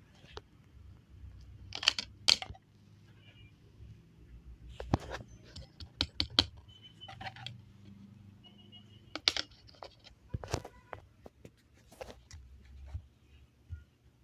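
A Samsung GT-E1195L keypad phone being handled: a string of sharp clicks and knocks, with a few short, faint electronic beeps between them.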